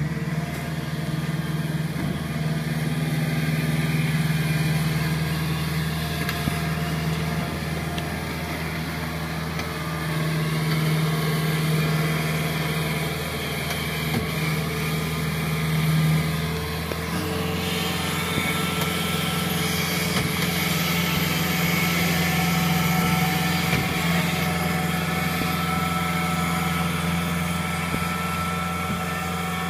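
Kubota crawler combine harvester's diesel engine running steadily as the machine drives on its tracks out of a flooded rice paddy and up the bank; its tone shifts a little over halfway through.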